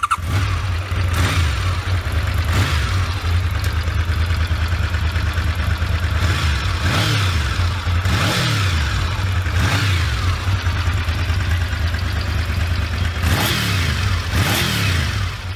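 Honda VFR750F (RC24) 748 cc V4 engine with gear-driven cams running at idle and being revved with short throttle blips several times, the revs rising and falling back each time.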